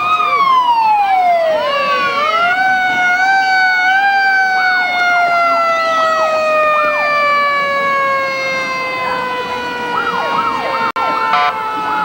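A siren sounding: its pitch rises sharply just at the start, falls over about two seconds, is wound up again between about two and four seconds in, then slowly falls through the rest, the long coasting fall of a wind-up siren. Short rising-and-falling chirps come in near the end.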